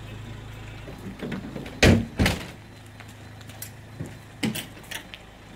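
A door banging: two loud thuds about half a second apart, then a few lighter knocks and clicks, over a low steady hum that stops after the thuds.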